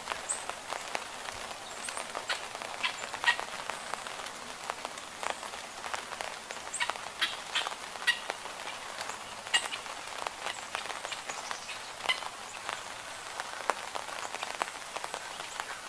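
Steady summer rain falling, with many individual drops striking nearby surfaces as sharp, irregular clicks over an even hiss.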